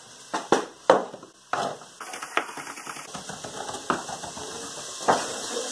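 Kitchen knife knocking on a wooden chopping board as garlic is minced with salt: four sharp separate knocks in the first two seconds, then fast, lighter tapping.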